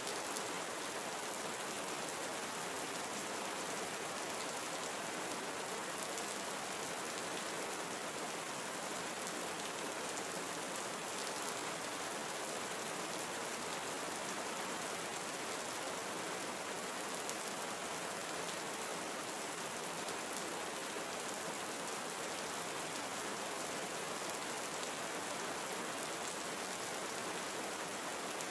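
Steady rain falling in a tropical forest: an even hiss of countless drops, with faint ticks of single drops here and there.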